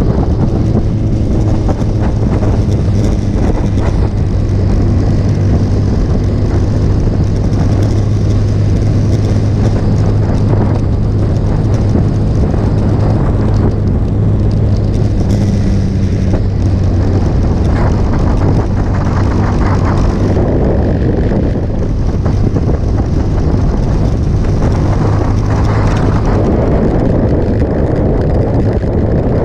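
Motorcycle engine running steadily at road speed, with wind rushing over the microphone. The engine note eases about two-thirds of the way through, then comes back strong near the end.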